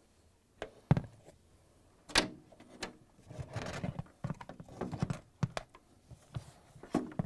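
Plastic knocks and clicks as a refrigerator's condenser fan motor and its plastic shroud are handled and lifted out of the machine compartment: two sharper knocks about a second and two seconds in, then lighter clicks and a brief scuffing.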